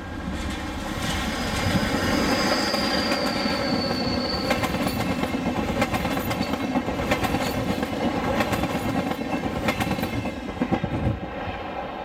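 DB Class 120 electric locomotive hauling an Intercity of passenger coaches past at speed. A rush of noise builds as it arrives, with a high whine that dips slightly in pitch in the first few seconds. Then the coach wheels clatter over the rail joints in an uneven rhythm of knocks until the last coach is by, about a second before the end.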